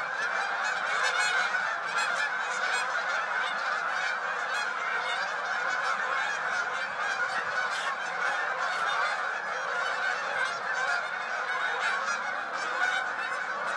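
A large flock of geese honking as it flies overhead, many calls overlapping into a steady, continuous chorus.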